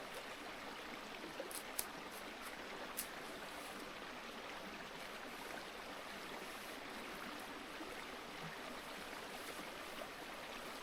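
Steady rushing of a river flowing nearby, with a few faint light clicks in the first three seconds.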